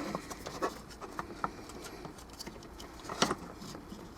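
Light handling noises from working on small plastic speaker parts: a few short clicks and faint scraping, the sharpest click about three seconds in.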